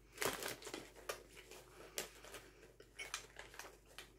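Caramel-coated popcorn being chewed: irregular crunching, loudest and densest just after the start, then sparser crunches.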